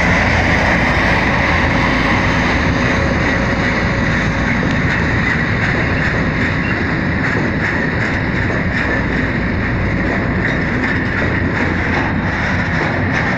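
Freight train passing close by: the diesel engine of a class 661 locomotive (EMD two-stroke V16) running as the locomotive goes past, then the train's hopper wagons rolling by with a steady rumble and clatter of wheels on the rails, clicks over the rail joints coming more often in the second half.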